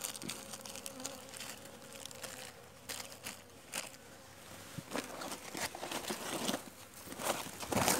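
Honeybees buzzing faintly around an open hive while plastic sheeting and a woven sack are rustled and crinkled as the hive is covered, with the loudest rustle near the end.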